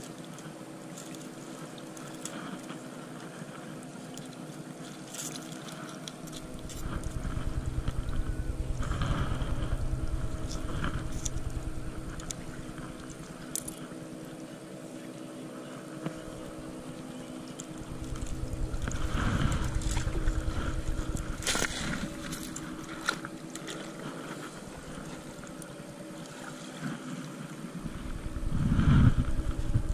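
Sea waves washing in over coral rubble and rocks at the shoreline, three surges roughly ten seconds apart, each swelling and then ebbing. A faint steady hum runs underneath.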